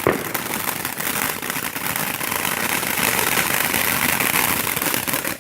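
Dense, continuous crackling and popping from many consumer fireworks going off at once, a steady barrage that cuts off suddenly near the end.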